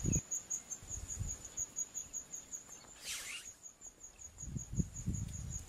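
Crickets chirping steadily, a high pulse about five times a second. About three seconds in there is a brief sweeping sound, and low rumbling comes in near the end.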